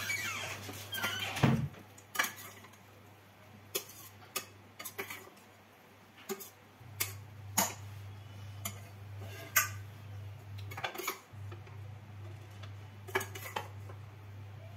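A steel spoon clinking and scraping against a stainless steel kadai as poha (flattened rice) is stirred and scooped out, a long run of irregular sharp clinks, some ringing briefly. A low steady hum runs underneath, dropping out for a moment twice.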